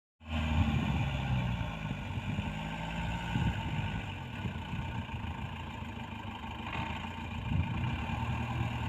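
Mahindra diesel engine running hard, its revs rising and falling unevenly, as when a pickup is driven up through sand.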